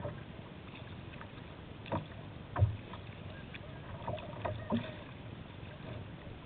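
Kayak paddling on open river water: a steady wash of water against the hull with a few short paddle splashes and knocks, the loudest about two and a half seconds in.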